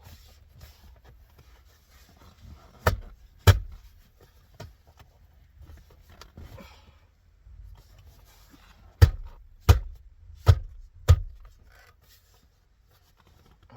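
A new plastic rear climate control panel in a Cadillac CTS console being pressed and knocked into place by hand to seat it: two sharp knocks about half a second apart, then four more roughly two-thirds of a second apart, with faint rubbing and handling between.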